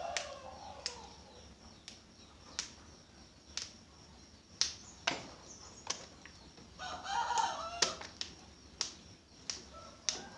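Fresh long beans being snapped into short pieces: about a dozen crisp, sharp snaps at uneven intervals, roughly one a second. A chicken clucks briefly near the start and again about seven seconds in.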